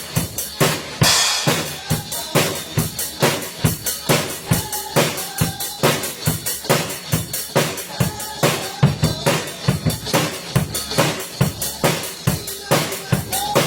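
A drum kit playing a fast, steady beat of bass drum and snare strikes, with a cymbal crash about a second in.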